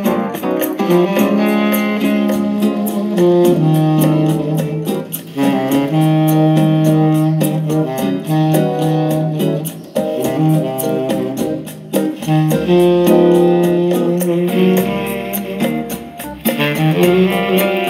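Instrumental music playing from an audio CD through the Philips MCB240 micro system's own speakers, with long held melody notes over a steady accompaniment.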